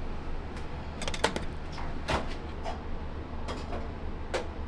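Metal spoon knocking and clinking against stainless-steel thali plates and bowls during plating, a few sharp separate clicks, over a steady low hum.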